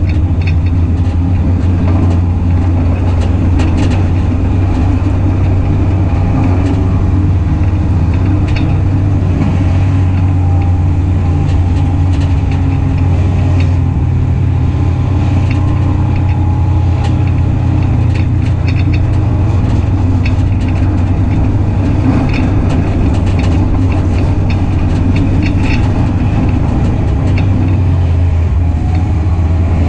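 Engine of a WISSOTA Hornet dirt-track race car, a front-wheel-drive four-cylinder, heard from inside the car, running at a near-steady speed without big revs. Short clicks and rattles come through over the drone.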